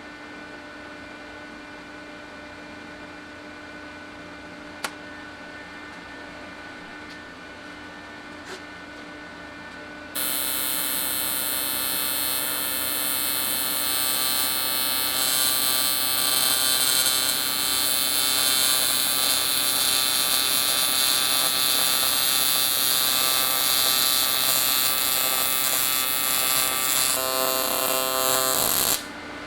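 AC TIG welding arc on aluminum: a loud, steady electric buzz with a high hiss that starts suddenly about ten seconds in and cuts off abruptly shortly before the end. Before it, only the welder's steady hum and two sharp clicks.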